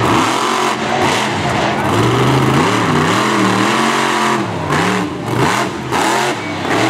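Monster truck engine revving hard, its pitch repeatedly rising and falling as the throttle is worked, dropping off briefly a few times in the second half.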